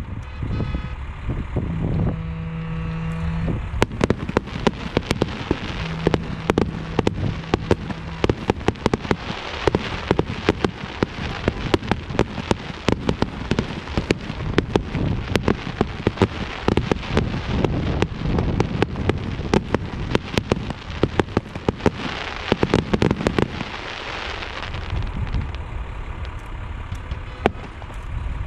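Fireworks going off in a dense run of rapid crackling pops that starts about four seconds in and thins out near the end. A car horn gives two long honks in the first eight seconds.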